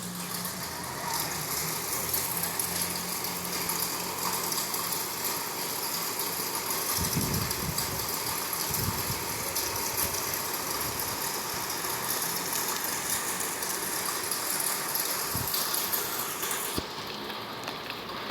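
Heavy rain and wind making a steady rushing noise, with gusts buffeting the phone's microphone around the middle. A low steady hum sits underneath for the first several seconds.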